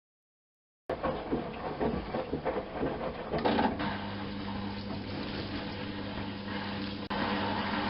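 Miele Softtronic W204 washing machine running its mini wash programme. The sound starts about a second in with a few seconds of irregular clattering and clicking, then settles into a steady motor hum.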